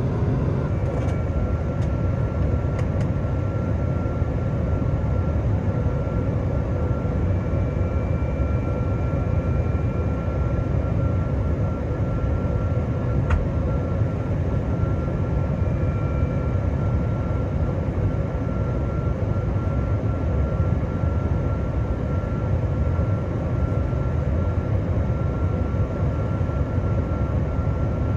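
Cabin noise inside a Boeing 777-200ER airliner on descent: a steady, deep rush of airflow and engine hum, with a faint steady whine above it. A few faint clicks early on and once more about halfway through.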